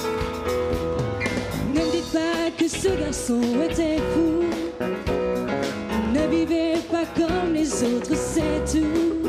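Live pop band playing an instrumental passage of a French variété song medley: a wavering melodic lead line over drums, bass and keyboards, with a steady beat.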